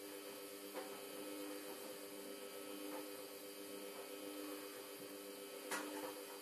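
Samsung WF1702NHWG front-loading washing machine running with a steady hum near the end of its wash programme. A few light clicks come over the hum, the loudest near the end.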